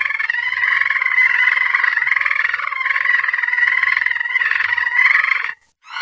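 A cat-like meow call voiced for an animated alien cat: one long, high, slightly wavering call that stops abruptly about five and a half seconds in.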